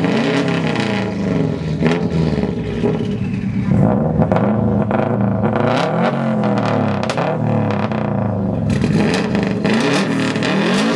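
Turbocharged Subaru flat-four boxer engines, a straight-piped WRX and a built STi, being revved hard over and over in a rev battle, the exhaust note climbing and dropping again and again.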